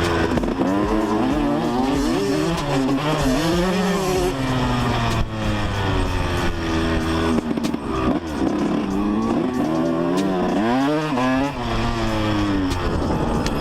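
Yamaha YZ125 two-stroke single-cylinder engine revving hard under load, its pitch climbing and dropping back several times as the bike is ridden through the gears.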